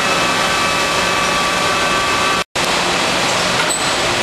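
Steady drone of a large 84-inch Blanchard rotary surface grinder running: an even, noisy hiss with a few steady whining tones. The sound drops out for a split second about two and a half seconds in, then carries on unchanged.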